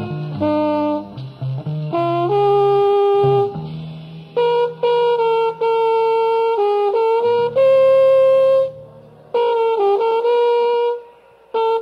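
Jazz trombone solo: a melodic line of held notes in phrases separated by short breaths, with one long sustained note past the middle, over a quieter low accompaniment that drops out in places.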